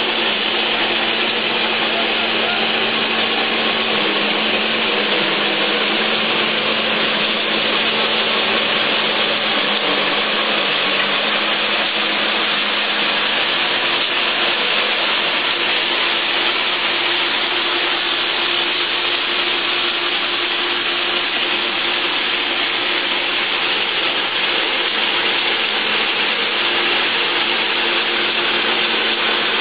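Motor-driven corn peeling machine running steadily: an even, unbroken whirring noise with a steady hum underneath.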